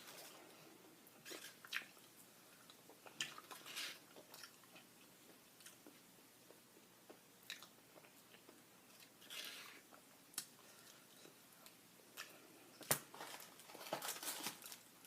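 Close-up chewing and crunching of crispy fried chicken, with scattered short crisp crunches and mouth sounds and one sharp louder click near the end.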